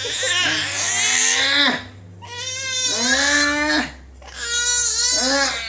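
A baby crying in three long wailing cries, each about a second and a half, with short breaths between.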